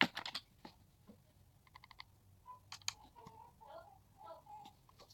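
Faint clicks and taps from handling a plastic makeup compact, including a quick run of small ticks about two seconds in.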